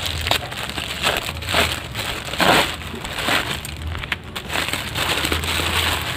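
Plastic mailer bag crinkling and rustling as it is cut with scissors and pulled open by hand, in irregular bursts, the loudest about two and a half seconds in.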